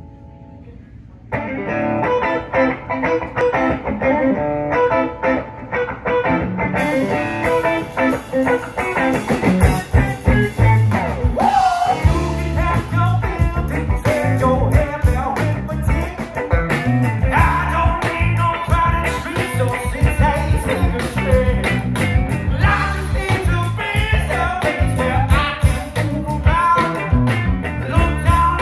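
Live rock band starting a song: an electric guitar comes in about a second in, cymbals join around seven seconds, and from about ten seconds the full band is playing with drums and a lead singer.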